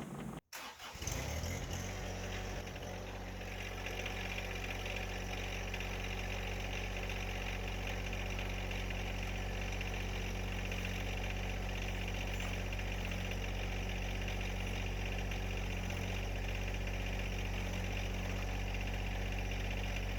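John Deere 1025R tractor's three-cylinder diesel engine starting about a second in, then running steadily.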